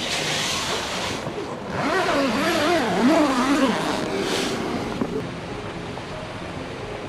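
Tent fabric rustling against the microphone as it is handled. In the middle a person's voice wavers up and down for about two seconds, like humming. About five seconds in this gives way to a steady rushing background.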